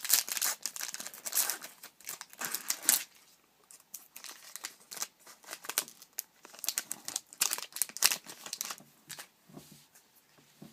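Trading card pack wrapper being torn open and crinkled by hand, a busy run of sharp crackles and rips that pauses briefly about three and a half seconds in and thins out near the end.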